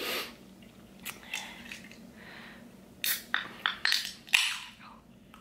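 Aluminium energy drink can being handled and cracked open. A short hiss comes at the start, a faint click about a second in, then a quick run of sharp metallic clicks and taps from about three seconds in, the last ones loudest.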